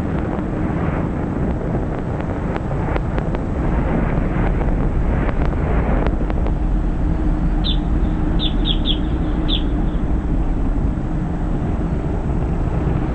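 Falcon rocket engines' roar during ascent: a loud, steady, deep rumble with sharp crackles through the first half, and a few short high chirps a little past the middle.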